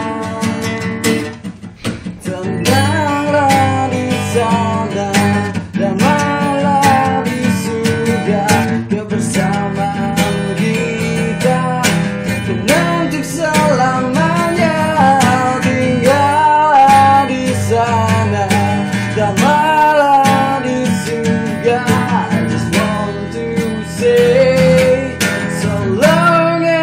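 A man singing a slow song while strumming an acoustic guitar, with a short dip in the playing about two seconds in.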